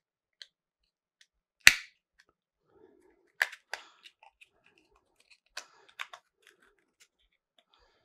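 Sharp clicks and clacks of small metal CPU-cooler mounting bracket parts being handled and fitted together. The loudest click comes about a second and a half in, then two pairs of lighter clicks with faint ticks between.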